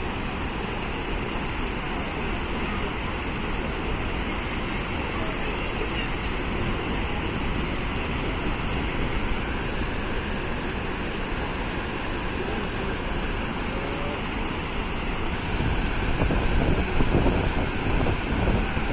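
Steady roar of a waterfall's rushing water. From about three-quarters of the way through, uneven gusts of wind buffet the microphone.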